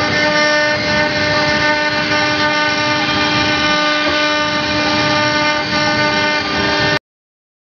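An OMNI 1325 CNC router's spindle runs steadily with a constant whine as its bit carves a 3D relief into wood. It cuts off abruptly near the end.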